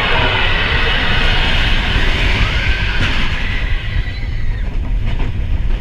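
Expedition Everest roller coaster train running along its track, heard from on board: a loud, steady low rumble with rushing noise over it.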